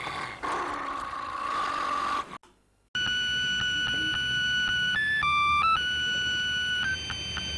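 A drawn-out animal roar ends about two seconds in. After a brief gap, a thin electronic melody follows: steady beeping notes, each held from half a second to about two seconds, like a cheap synthesizer tune.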